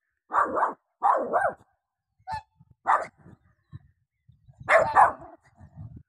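A dog barking in a run of short, loud barks, several of them in quick pairs, with a pause of a second or so before a last double bark near the end.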